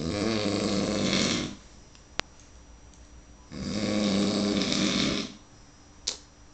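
A person snoring heavily in drunken sleep: two long, buzzing snores about two seconds apart, with quiet breathing between them.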